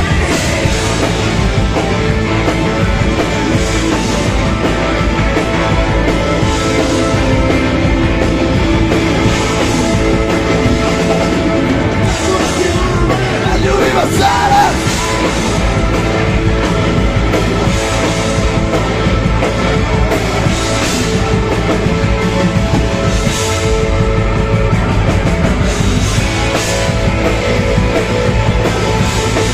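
Live rock band playing loud amplified rock music with a steady beat.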